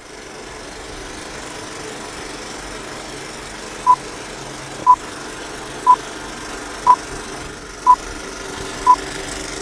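Film-leader countdown sound: a steady whirr of a running film projector, with six short, high beeps one a second, starting about four seconds in, one beep for each number counted down.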